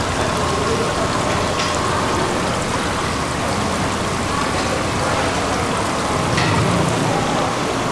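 Steady splashing of running water in a seafood market, with a couple of brief clicks, one about a second and a half in and one later on.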